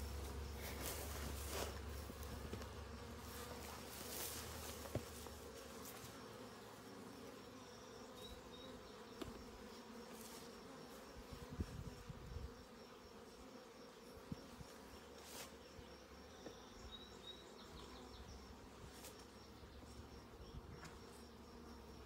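Honey bees buzzing around an open hive, a faint steady hum, with a few light knocks about halfway through.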